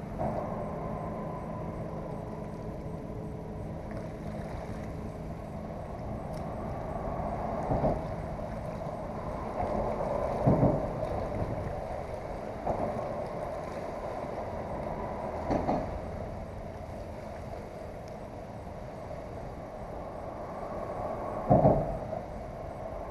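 Road traffic crossing the bridge overhead: a steady hum of vehicles, with a passing vehicle swelling loudly every few seconds, the loudest near the end.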